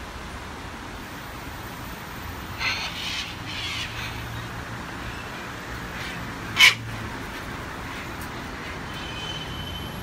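Sulphur-crested cockatoos screeching: a few harsh calls about three seconds in, then one short, much louder screech just past the middle. A steady hum of road traffic runs underneath.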